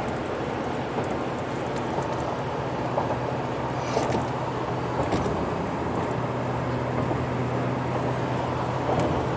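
Road noise inside a moving car: a steady drone of tyres and engine with a low hum, and a few faint ticks.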